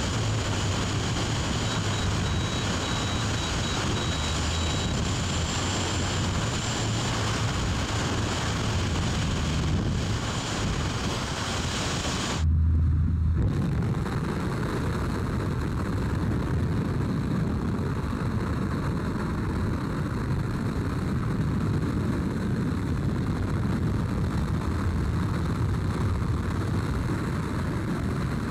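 Steady drone of a jump plane's engine mixed with rushing air. About twelve seconds in there is a brief break with a low thump, after which the rush runs on duller.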